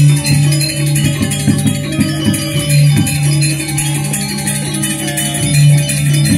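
Balinese gamelan playing: a strong low tone swelling and fading in repeated pulses, with struck metallic notes and a dense high jangle of small cymbals over it.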